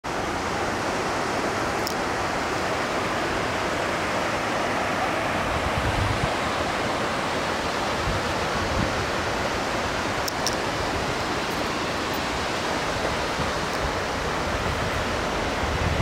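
Steady rush of whitewater from the Little Firehole River cascading below Mystic Falls, an even, unbroken noise of fast-flowing water.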